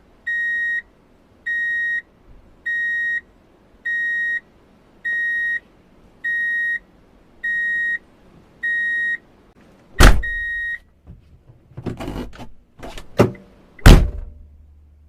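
Vehicle reversing alarm: a single high beep repeating about once a second, each beep about half a second long. About ten seconds in the beeping stops after a loud bang, followed by a few more bangs and clatter, the loudest near the end.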